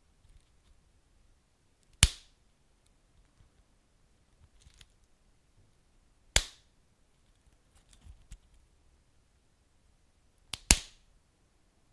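Wood fire crackling: three loud, sharp pops about four seconds apart, the last a quick double pop, with faint small crackles in between.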